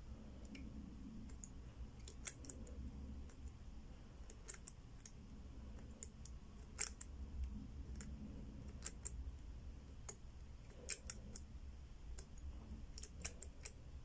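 Faint, irregular clicks of a Zhege four-wheel combination padlock's number wheel being turned by thumb, one detent at a time, while the shackle is held under tension: the wheels are being felt for loose and seized positions to decode the lost combination.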